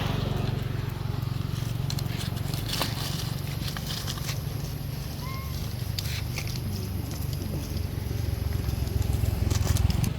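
A motor engine running steadily as a low hum, with scattered clicks and a short high chirp about five seconds in.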